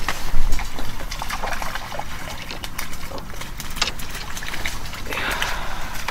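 Water trickling, heard as irregular small clicks and rustles over a low rumble, with a brief louder rush of noise about five seconds in.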